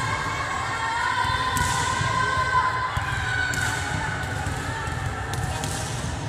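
Players and spectators shouting and calling across a sports hall, with a few sharp thumps of a volleyball being struck or bounced.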